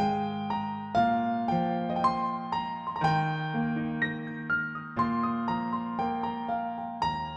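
Piano playing a slow, gentle broken-chord accompaniment, with notes struck about twice a second over held bass notes.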